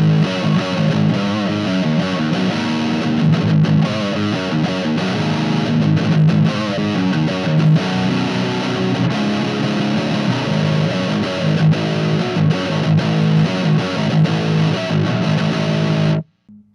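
Electric guitar played through a distorted amp and speaker cabinet: a heavy overdriven riff with steady low chugging notes, which stops abruptly near the end.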